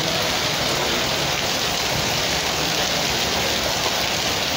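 Heavy rain pouring down steadily on a paved street, a dense, even hiss.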